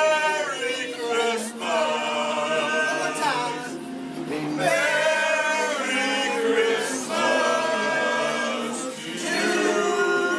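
A small mixed group of men and women singing together, holding long notes.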